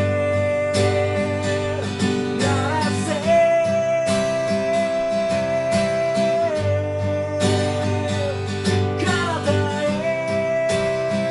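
Live song: a singer holding long notes over a strummed acoustic guitar.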